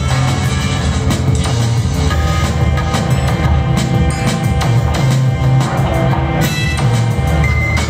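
Live glitch hop electronic music played from a laptop and controllers, with a heavy bass line and a steady drum beat.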